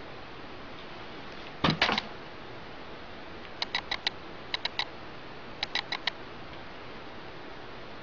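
An X-Acto knife with carbon fiber vinyl on its handle being handled in the fingers: a soft knock with a rattle of clicks a little under two seconds in, then three quick clusters of three or four sharp ticks, over a steady hiss.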